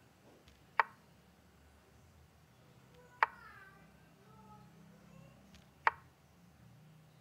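Chess software's piece-move sound effect, a short wooden knock, heard three times as pieces are placed on the board, about a second in, near the middle and near the end.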